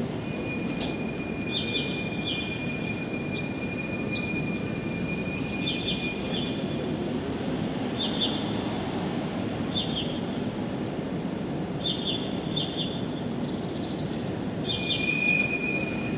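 Small birds chirping in short, quick phrases that repeat about every two seconds, with one long, steady, high whistled note held through the first several seconds and again briefly near the end. Underneath runs a steady low rumbling background noise.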